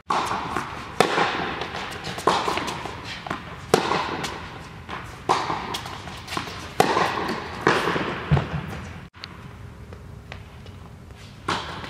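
Tennis ball rally: racket strikes and ball bounces, about one a second, each ringing on in the echo of an indoor tennis hall. The sound breaks off abruptly about nine seconds in and goes quieter.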